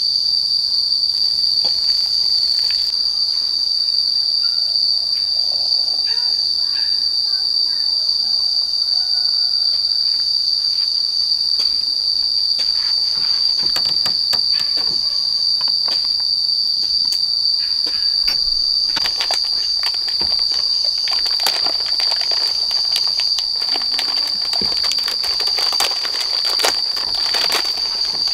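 Steady, high-pitched drone of an insect chorus that holds without a break, with scattered light clicks and knocks in the second half.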